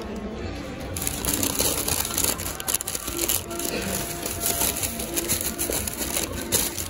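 Paper fast-food bag crinkling and rustling as it is handled and opened out, a dense irregular crackle that starts about a second in, with background music underneath.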